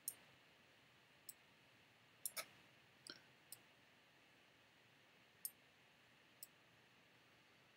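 Faint, scattered clicks of a computer mouse and keyboard during on-screen text editing, about eight short clicks spread irregularly over a near-silent room.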